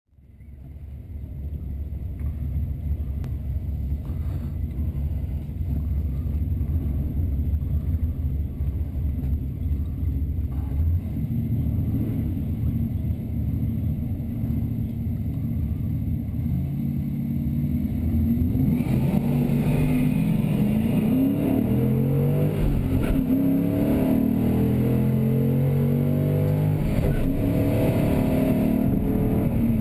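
Stock 2005 Mustang GT's 4.6-litre V8, heard from inside the cabin: a steady low idle for the first half, then full throttle from about eighteen seconds in. The engine note climbs and drops back several times as it runs up through the gears on a drag-strip pass.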